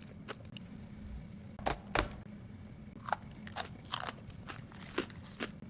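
Eating sounds: chewing a crunchy food, heard as irregular crisp crunches and clicks, about eight of them spread over the last four seconds.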